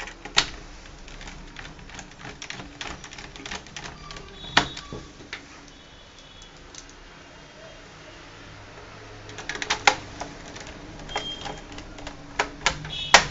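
Irregular light clicks and taps of a small screwdriver and screws against a laptop's plastic bottom cover as the base screws are driven back in. They come thickest in the first few seconds and again near the end.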